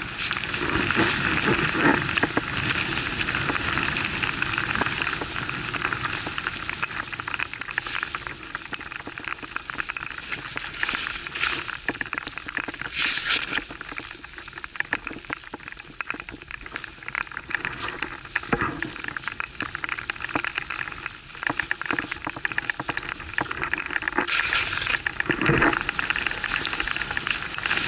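Skis running through snow with a steady crackling hiss, mixed with wind and rubbing on the handheld camera's microphone; the hiss swells and fades, with a few short knocks.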